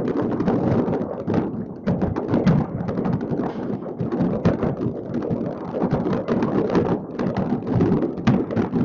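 Fireworks going off all over a city at once: a dense, unbroken run of overlapping bangs, booms and crackles.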